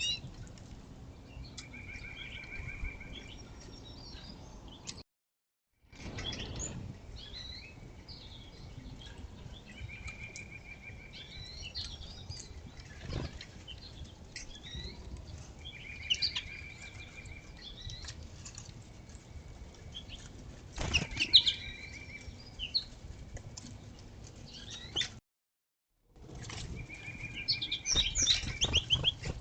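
Small songbirds at a backyard feeder chirping and twittering, with a short, even trill repeated several times. There are wing flutters and sharp clicks among the calls.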